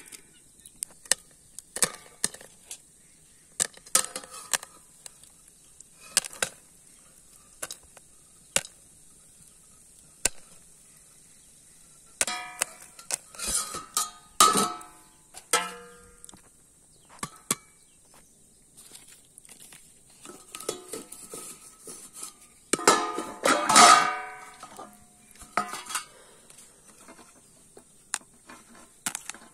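Corn kernels popping now and then inside a covered iron kadai, each pop a sharp click against the metal. Twice there is a longer burst of metal clatter and ringing from the steel lid, pan and bowl being handled.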